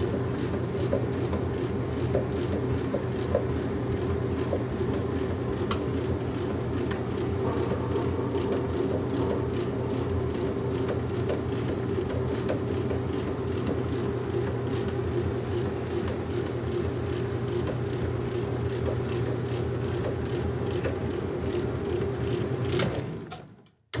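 Washing machine running: a steady low hum with faint, regularly spaced ticks. Near the end it fades to near silence for a moment, then resumes abruptly.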